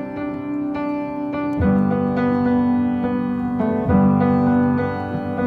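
Background piano music: slow sustained chords, a new chord struck every second or two.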